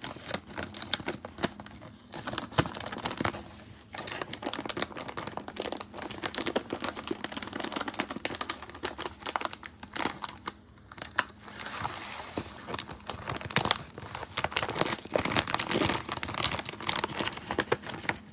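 Paper crinkling and rustling in irregular bursts as a paper treat-bag template is folded and pressed together by hand.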